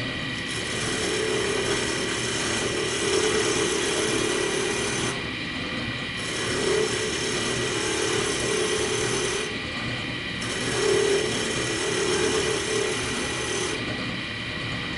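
Wood lathe running steadily while a skew chisel cuts a spinning wooden spindle, in passes of a few seconds with three short breaks. The skew is taking very fine shavings.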